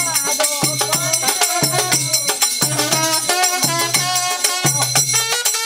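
Festive Bengali wedding music: a dhol drum beaten in a quick, steady rhythm with jingling percussion and a wavering melody line over it.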